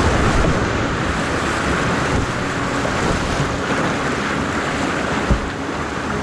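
Rushing white water of a fast river, a steady loud rush of noise, with wind on the microphone. A single knock about five seconds in.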